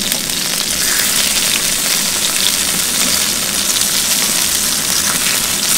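Slices of boiled potato frying in hot olive oil with garlic cloves and parsley stems: a steady sizzle with small crackles, the potatoes browning on their second side after being turned.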